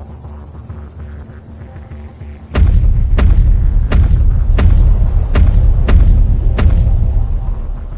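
A low rumble, then about two and a half seconds in, a much louder run of heavy booming thuds, seven in all, about one every two-thirds of a second, over a deep rumble that eases near the end.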